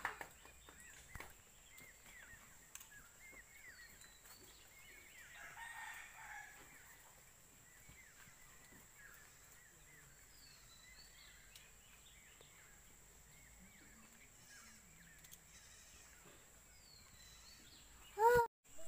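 Faint farmyard ambience: chickens calling, with a rooster crowing once about six seconds in. Near the end comes a child's short, loud yawn.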